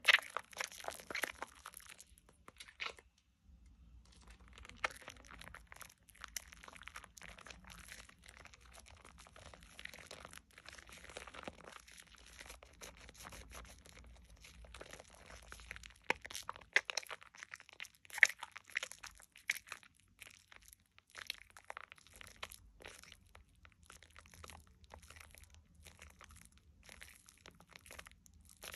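Hands squeezing and kneading thick lather around a bar of Dove shea butter soap: wet, irregular crackling and squishing of the foam, with a brief pause about three seconds in.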